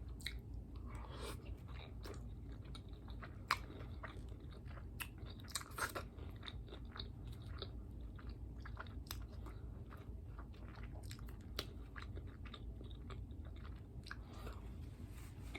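A person chewing and biting into a taco close to the microphone: irregular wet crunches and mouth clicks, several sharper crunches a few seconds in, over a low steady hum.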